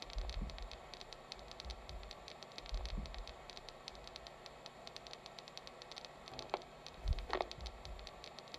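Faint hiss and crackle of static, with a few low rumbles and two brief squeaks near the end.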